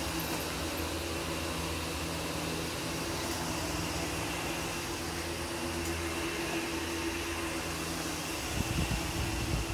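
Steady mechanical hum of a running motor, even in pitch and level, with a few low thumps near the end.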